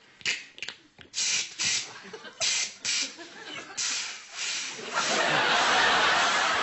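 Improvised vocal sound effects: a string of short, sharp hisses made by mouth, then one long steady hiss starting about five seconds in, with some audience chuckling.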